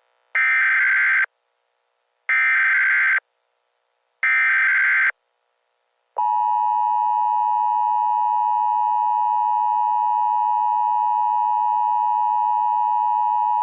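Emergency Alert System header: three short screechy bursts of SAME digital data tones, each about a second long and two seconds apart. From about six seconds in comes the steady two-tone EAS attention signal, which marks the start of an emergency alert.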